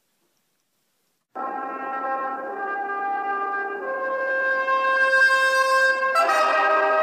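Near silence, then music comes in suddenly about a second and a half in: brass instruments playing long held notes, with the chord changing about six seconds in.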